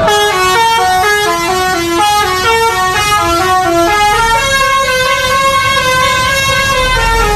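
Telolet basuri bus horn playing a melody on several pitched horn tones. For about four seconds the notes change quickly, then it moves into longer held notes.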